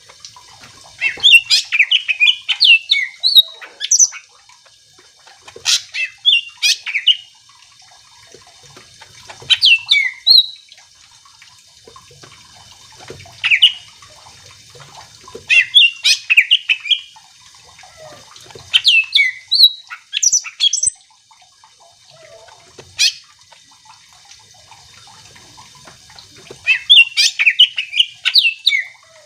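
Cucak ijo (green leafbird) in full song: short, loud phrases of rapid whistles and chattering notes, each about a second long, repeated every three to four seconds.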